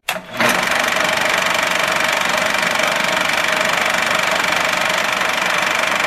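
TV-static sound effect: a loud, steady hiss with a faint high whine in it, starting about half a second in after a brief drop.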